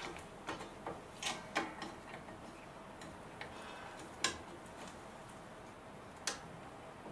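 Irregular small metallic clicks and taps as a VW up's rear drum brake shoe is levered back and pulled clear of the wheel cylinder's piston lugs, steel shoe and springs knocking against the backing plate. The sharpest clicks come about a second and a half in, at about four seconds and at about six seconds.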